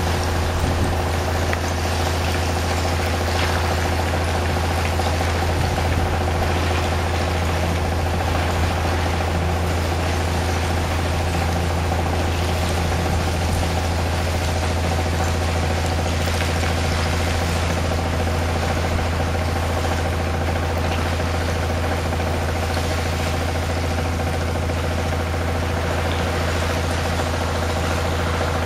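Engine-driven water pump running steadily, with the rushing hiss and splash of a high-pressure water jet blasting oyster shell off a barge into the water.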